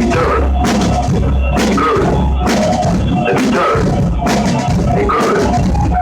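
Rock music with a drum kit driving the beat, loud and steady, with repeated cymbal and drum strikes over a full band backing.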